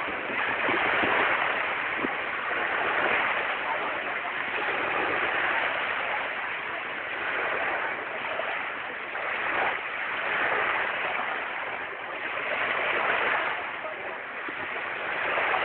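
Small waves breaking and washing up the sand at the water's edge, the wash swelling and fading every two to three seconds.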